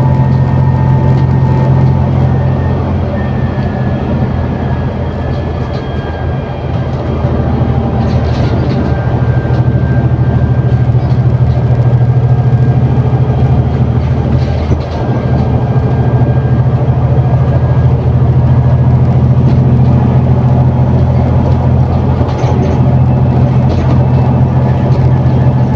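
Engine of an ADL Enviro400 City double-decker bus with a Voith automatic gearbox, heard on board as a steady low drone under load. It eases off for a few seconds around the sixth second, then pulls strongly again, with a brief dip about fifteen seconds in.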